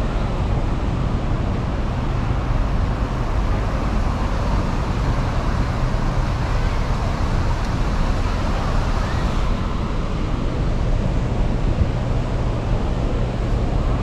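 Wind buffeting the microphone over the steady wash of sea surf on the beach, a continuous rumbling noise with no distinct events.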